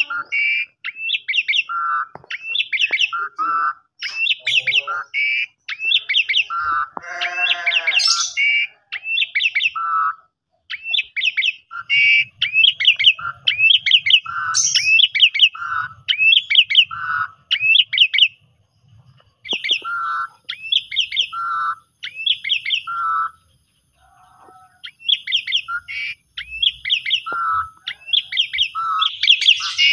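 Pied starling (jalak suren) singing: a short phrase of clear whistled notes, a high falling whistle and a lower note, repeated over and over with brief pauses, and one harsh rasping call about seven seconds in.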